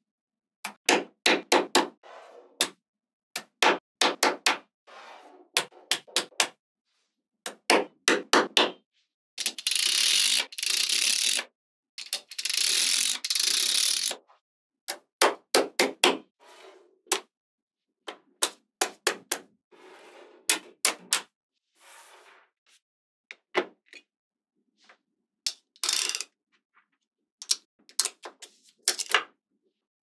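Small magnetic balls clicking sharply as they snap together, in quick clusters of clicks as ball blocks are pressed onto a magnetic-ball wall. Near the middle come two longer stretches of dense rattling of about two seconds each.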